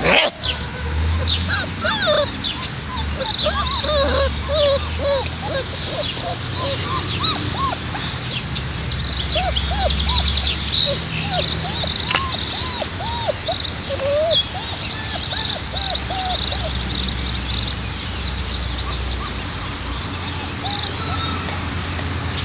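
Four-week-old Alaskan Malamute puppies giving a string of short, squeaky yips and whimpers while they play-fight, the calls thinning out over the last few seconds.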